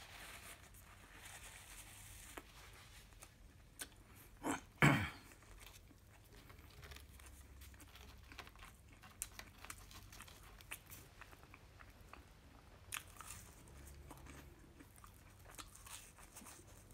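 A person chewing a mouthful of fast-food burger close to the microphone: faint wet mouth clicks and crunching, with one louder sharp mouth sound about five seconds in.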